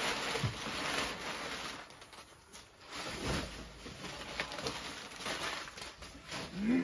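A cardboard shipping box being opened and its packing handled: rustling and scraping, with a few small knocks.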